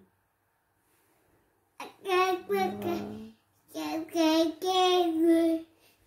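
A baby vocalizing in two long, pitched, sing-song sounds, starting about two seconds in.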